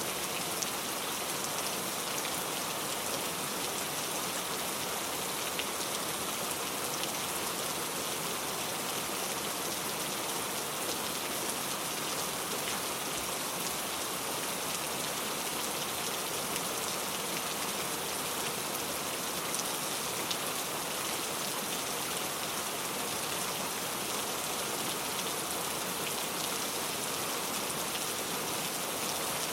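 Heavy rain falling steadily, a dense even hiss of many drops striking surfaces, with no thunder.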